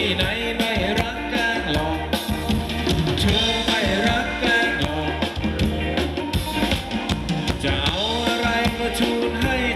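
Live band playing upbeat Thai ramwong dance music: a steady drum beat under a wavering melody line.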